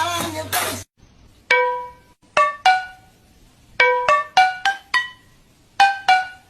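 A sung music track cuts off under a second in, followed by a sparse plucked-string melody of short single notes in small groups with pauses between them.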